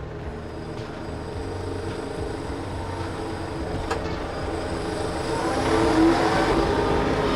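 Small tractor's engine running under load as the front loader works a mechanical log grapple, with a wavering whine that grows louder in the second half.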